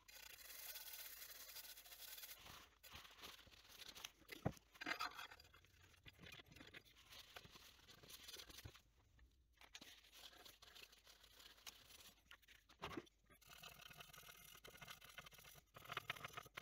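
Faint rubbing and scraping of a tissue wiping a Commodore 64 circuit board, with a few light knocks. From about three seconds before the end there is a finer, rapid scratching as a glass-fibre pen scrubs the board's edge-connector contacts.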